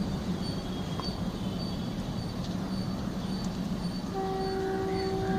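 Indian Railways Alco diesel locomotive with its engine running as a steady low drone, then about four seconds in its horn sounds a long, steady multi-tone chord that holds on past the end.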